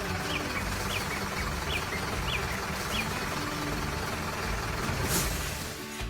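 Heavy machine engine running steadily, with about five short falling bird chirps over it in the first half and a brief hiss about five seconds in.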